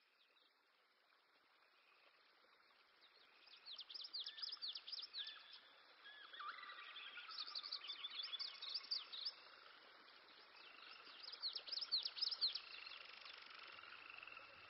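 Birds chirping: three bouts of quick, high chirps over a soft hiss that fades in at the start.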